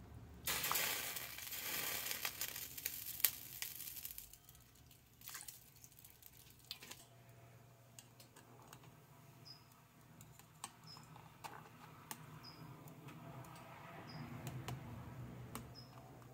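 Cooking wine poured from a glass bottle into a pot of clams and water, a splashing pour for about three seconds. Then a stainless pot of clams bubbling at the boil, with light clicks of a mesh skimmer against the pot as foam is skimmed off.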